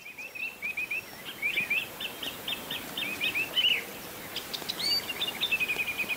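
Songbirds singing, a steady stream of short, quick chirps and trills with a faint background hiss; near the end one bird runs a fast trill of evenly repeated notes.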